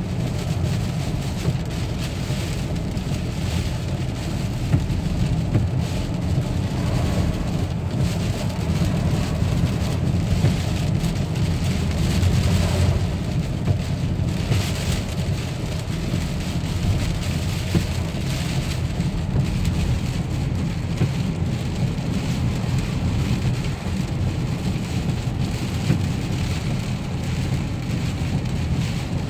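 Heavy hurricane rain and wind beating on a moving car, with a steady low rumble of wind and road noise heard from inside the cabin.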